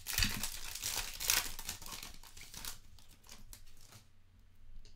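Foil wrapper of a Select soccer trading-card pack being torn open and crinkled in the hands. The crinkling is busiest for the first couple of seconds, then dies down to a few small clicks about three seconds in.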